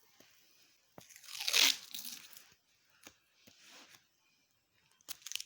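Handling noise from hand work: a click about a second in, then a rasping, scraping noise lasting about a second and a half, and a quick cluster of sharp clicks near the end.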